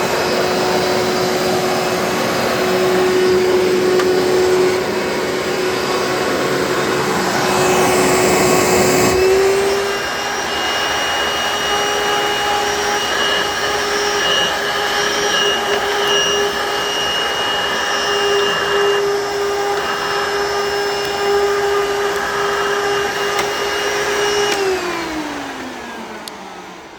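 Hoover Bagless Twin Chamber System upright vacuum running, a steady motor whine over rushing air. About a third of the way in the rushing roughness drops and the whine steps up slightly. Near the end it is switched off and winds down with a falling whine.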